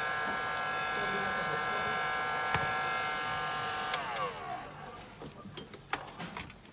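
Handheld heat gun running with a steady whine, switched off about four seconds in, its fan winding down with falling pitch. A few light clicks and taps follow.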